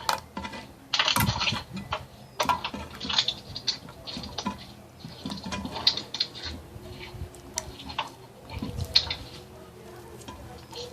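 Glue slime being mixed as activator is worked in: irregular sticky clicks and squelches, on and off.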